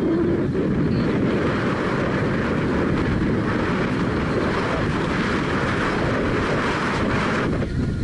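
Tour boat under way on the river: its engine and wind over the microphone make a steady rushing noise that drops away near the end.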